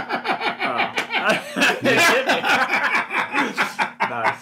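Men laughing together at a pun, in quick repeated chuckling pulses that trail off near the end.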